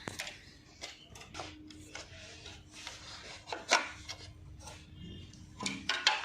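Hand-work noises while an AC indoor unit's fan motor is removed and its plastic blower is separated from the shaft: scattered clicks, light knocks and rubbing scrapes of plastic and metal parts, with one sharper knock a little past the middle.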